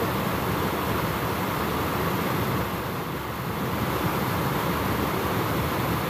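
Steady rush of water spilling over a small stone weir into a shallow stream.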